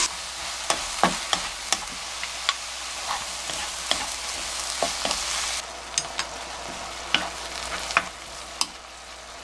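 Julienned bottle gourd stir-frying in oil in a nonstick pan: a steady sizzle with irregular clicks and scrapes of a wooden spatula against the pan. The sizzle is a little softer in the second half.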